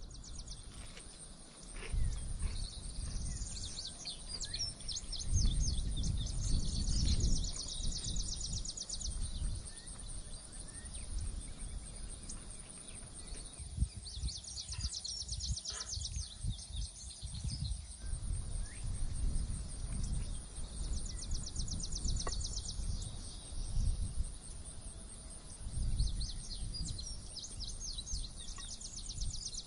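Outdoor ambience: songbirds singing in fast high trills that come and go in bursts, over an uneven low rumble that swells and falls.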